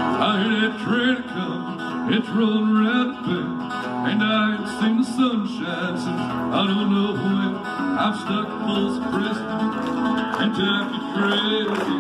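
Live acoustic guitar strummed in a country rhythm, with a man singing along at the microphone.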